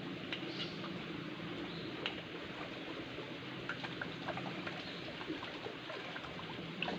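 Shallow rocky stream running steadily, with small scattered splashes and clicks as hands shift stones and dead leaves in the water.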